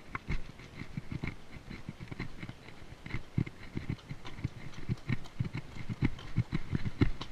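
A horse's hooves stepping on a rocky dirt trail at a walk: a run of uneven clops and knocks, growing louder near the end.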